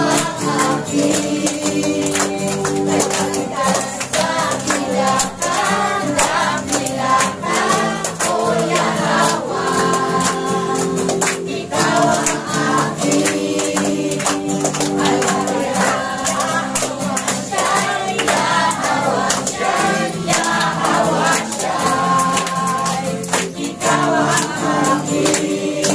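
Congregation singing a Tagalog praise song together over music, with a tambourine shaking and striking on the beat.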